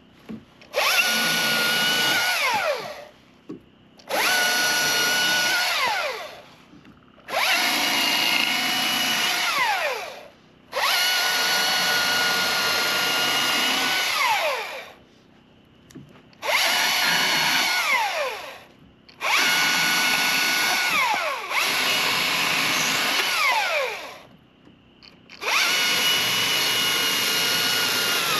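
Husqvarna T540i XP battery-powered top-handle chainsaw running in about eight separate bursts of a few seconds each, cutting small limbs. Its electric motor gives a steady whine, and at the end of each burst it winds down in falling pitch as the trigger is released.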